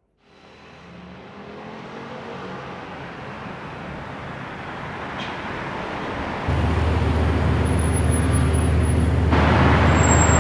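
Designed cinematic sound effect with a vehicle-like rumble. A noisy swell builds steadily from silence. About six and a half seconds in, a deep low rumble comes in suddenly, and a brighter rushing surge joins near the end.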